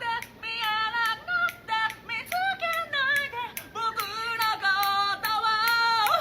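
A high-pitched voice singing a melody in short, bending notes, with sharp clicks between the notes.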